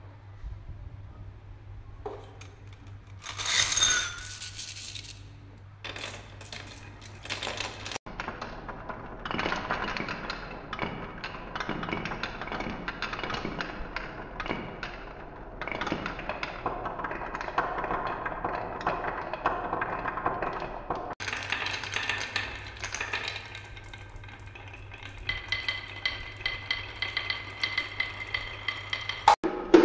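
Many glass marbles rolling and clattering down grooved wooden marble-run tracks, a wooden spiral and wavy slopes, in a dense run of clicks and rolling rumble. There is a louder burst of clinking about three seconds in.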